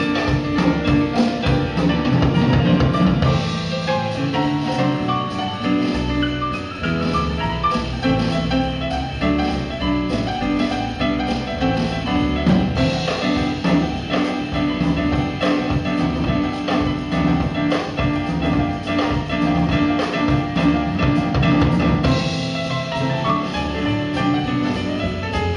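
A band playing an instrumental passage, with a drum kit keeping a steady beat under sustained melodic instruments.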